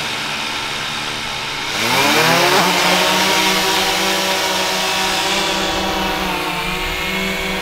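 DJI Mavic 2 quadcopter drone's propellers spinning up: a steady motor whine for about two seconds, then rising in pitch as it lifts off and holds a low hover over the ground with a steady high-pitched buzz.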